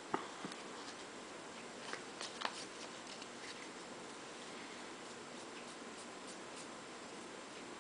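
Stack of Bowman baseball cards handled and flipped through by hand: a sharp tap right at the start, a few short card clicks in the first three seconds, then faint ticks of cards sliding past each other over a steady low hiss.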